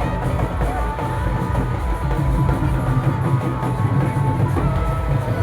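Loud music with a heavy drum beat and a held melody line, playing without a break.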